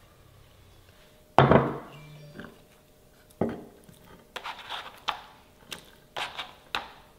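Kitchen utensils being handled. About one and a half seconds in there is a loud clunk with a short ring, followed by scattered knocks and clatter of wood and crockery.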